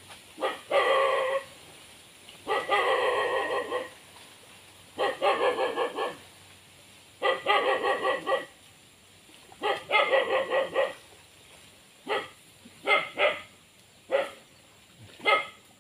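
A dog barking in quick runs of several barks, five runs about a second long each at roughly two-second intervals, then single barks toward the end.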